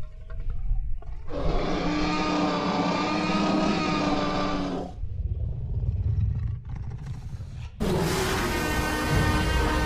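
Tyrannosaurus rex roar sound effects: one long roar about a second in, lasting some three and a half seconds, then a low rumble, then a second roar starting near the end.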